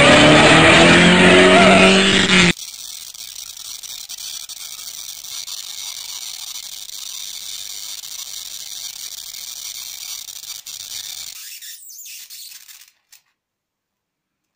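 A race car engine revving, rising in pitch, for about two and a half seconds, then cutting off suddenly. A much fainter steady hiss with a thin high whine follows and stops about twelve seconds in.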